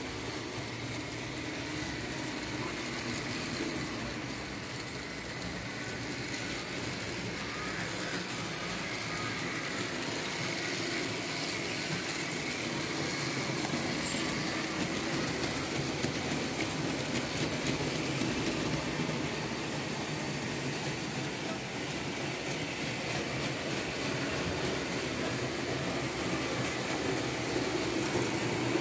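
Märklin H0 model train, a BR 74 locomotive pulling open freight wagons, running on its metal track with a steady rolling and motor hum that grows slowly louder.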